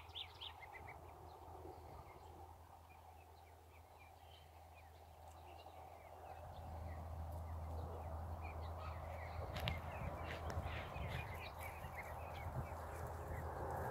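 Indian Runner ducklings peeping in short, scattered calls as the flock moves over grass, over a steady low background rumble that grows louder about halfway through.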